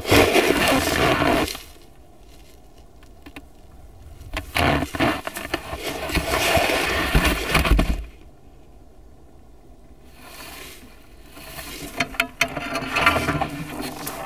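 A polar bear batting and shoving a camera across snow and ice: crunching and scraping of snow and ice against the camera. It comes in three noisy spells, at the start, in the middle and near the end, with quieter stretches between.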